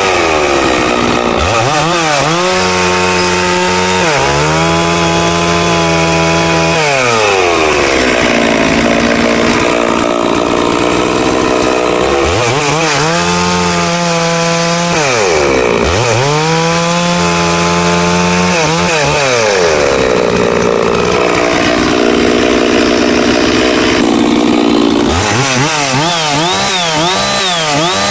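Holzfforma G666 chainsaw, a Stihl 066 clone with a big two-stroke engine, cutting through firewood rounds at full throttle. The engine note repeatedly drops and climbs back as cuts start and finish, with a quick warbling rev near the end. The saw is new out of the box and running on its factory carburettor setting.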